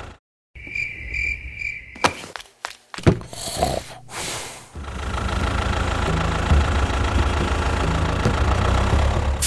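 A short run of evenly pulsed high beeps and a few sharp knocks, then a small engine running steadily from about halfway through.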